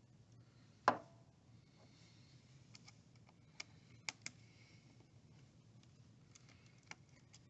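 Scattered light clicks and taps of small hand tools being picked up and handled on a workbench, the loudest about a second in, the rest fainter and spread out.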